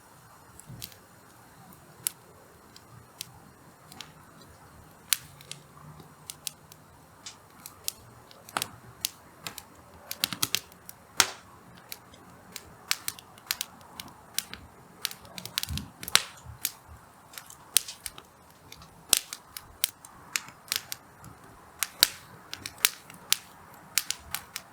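Hardwood campfire crackling, with irregular sharp pops and snaps from the burning logs that come thicker around the middle.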